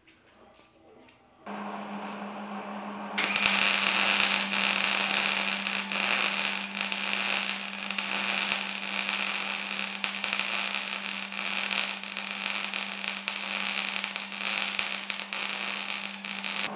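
A steady low hum comes on about one and a half seconds in, then a MIG welder's arc crackles and sizzles continuously from about three seconds in, welding the edges of a stacked steel-and-copper billet to hold the layers together.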